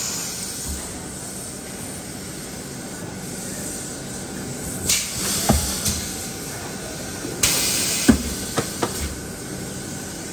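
A steady hiss with two short bursts of louder hissing, about five and seven and a half seconds in, and a few sharp knocks from about five and a half seconds on.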